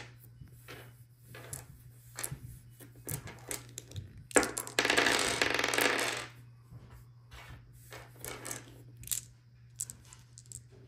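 Six tiny clear plastic dice rolled and clattering on a wooden tabletop. There are scattered sharp clicks throughout, and a dense rattle lasting about two seconds that starts about four seconds in.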